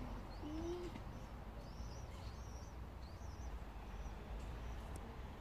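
A small songbird singing: short, high chirps repeating irregularly every half second to a second, over a steady low rumble of outdoor background noise.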